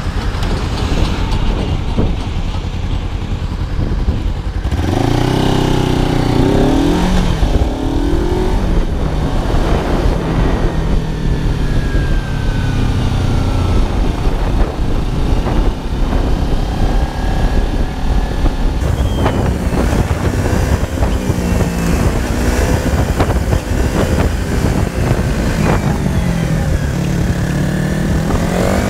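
Kawasaki ZZR250 motorcycle with a Ninja 250R parallel-twin engine under way, the engine note rising and falling again and again as it revs up and shifts, over steady wind and road noise. For the first few seconds it is mostly wind and road noise; the engine note comes up about five seconds in. The footage runs at double speed.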